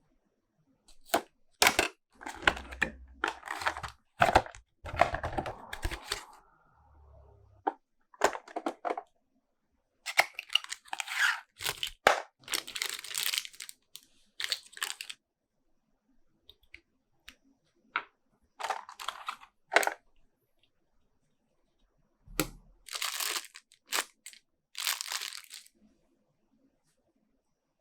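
Toy packaging handled by hand: bursts of tearing and crinkling with sharp clicks, broken by short silences.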